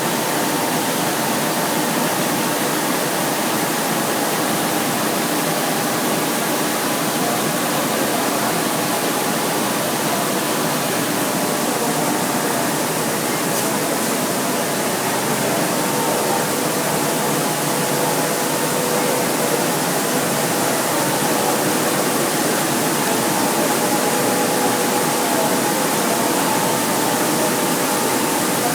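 Rice milling machine running steadily: an even, loud rushing noise with a few steady hum tones through it.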